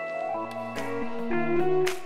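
Background instrumental music with plucked guitar, held notes changing every half second or so.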